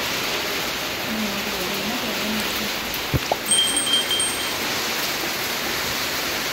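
Heavy rain falling, a steady hiss. A little past three seconds in come two sharp clicks and then a short high chime, the sound effect of a subscribe-button overlay.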